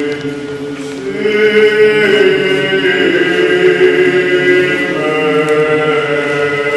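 Greek Orthodox Byzantine chant: chanters sing a slow melody over a steady, held low note. It gets louder about a second in.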